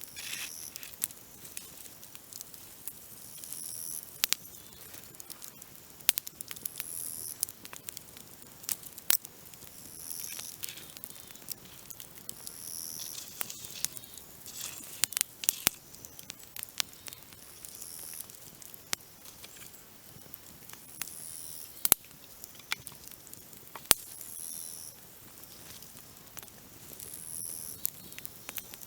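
Dry branches burning in a campfire: irregular sharp crackles and pops throughout. Over them, a grasshopper's short high buzzes repeat every two to three seconds.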